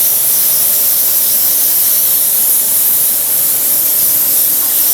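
CNC router milling aluminum: a loud, steady hiss with a faint steady hum underneath.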